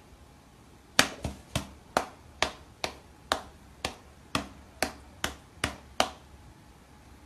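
A cat's paws striking a glass pane: a quick series of about a dozen sharp taps, roughly two a second.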